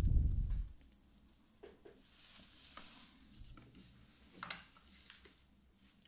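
Close-up handling sounds from hands and a soft cloth near the microphone. A low rumble in the first half-second is followed by faint rustling with scattered light clicks and taps.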